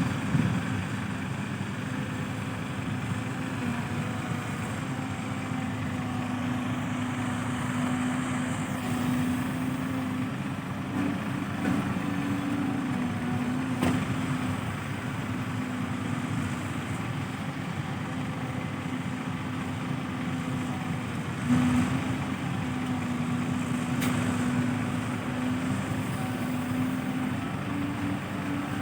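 Truck engine running steadily, its pitch rising and falling slightly, with a few sharp clicks.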